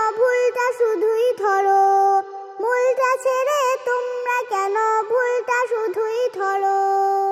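A young girl singing a Bangla Islamic song in sung phrases. Near the end she holds one long final note.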